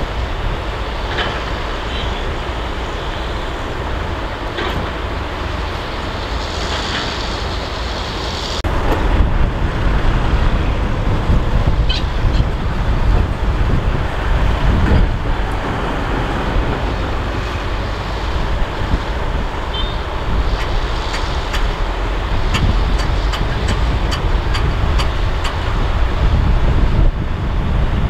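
Heavy dump truck's diesel engine running steadily, getting louder about eight or nine seconds in, with a few light clicks and clanks.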